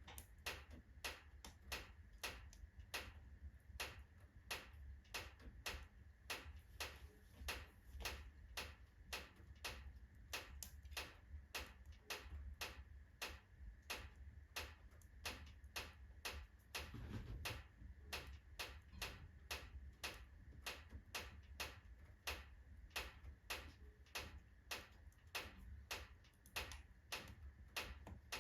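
Even, clock-like ticking, about two ticks a second, over the low steady rumble of an oak wood fire burning in a fireplace.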